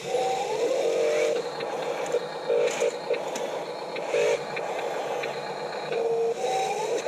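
Small electric motors of radio-controlled construction vehicles whining in short bursts, four or five times, with a rising whine as a motor speeds up. A few sharp clicks are mixed in.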